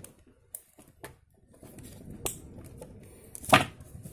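Scattered small clicks and taps from handling a small wooden circuit board and its wire leads, with one sharper click about three and a half seconds in.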